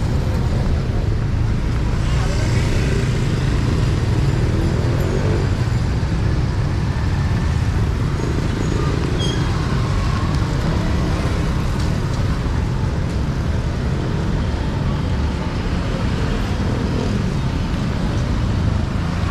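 Steady traffic noise from passing road vehicles, with a low rumble and faint voices in the background.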